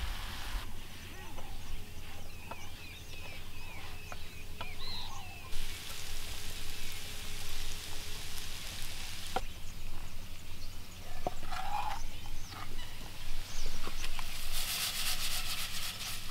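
Birds calling, among them a lower call like a domestic fowl's about eleven seconds in, over a steady low hum. Scattered sharp clicks run through it, and stretches of steady hiss start and stop abruptly.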